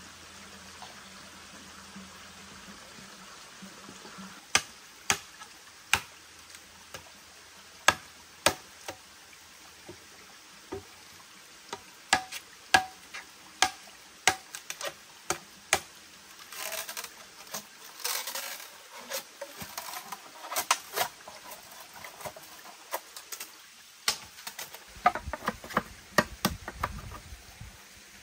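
Irregular sharp knocks and clicks, one or two a second, over the steady rush of a stream, with a stretch of scraping in the middle and a low rumble near the end.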